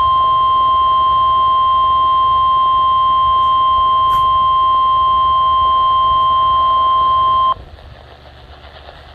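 NOAA Weather Radio 1050 Hz warning alarm tone, one loud steady beep heard through a weather radio's speaker, announcing that an emergency warning message follows. It cuts off suddenly about seven and a half seconds in, leaving faint radio hiss.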